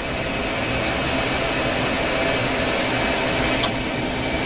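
Star SR20RIII CNC Swiss-type lathe running with its sub-spindle traversing along the Z axis: a steady mechanical whir with a high hiss and a few constant tones. A single sharp click comes about three and a half seconds in.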